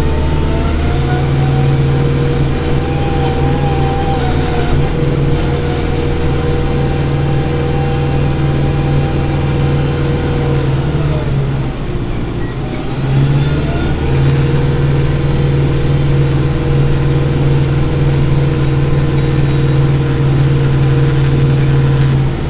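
Kubota tractor's diesel engine running steadily under load, heard from inside the cab, with a higher whine riding over it. About halfway through, the engine note sags and then climbs back up.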